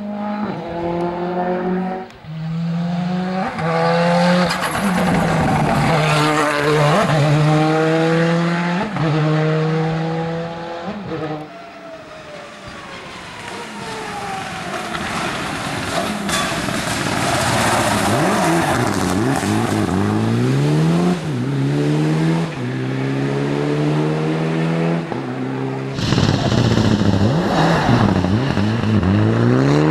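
Rally cars driven hard on a stage: engines revving high, the pitch climbing and falling back sharply at each gear change and lift off the throttle. A loud rush of noise comes around the middle as a car passes close. Near the end an engine winds up through several gears in quick succession.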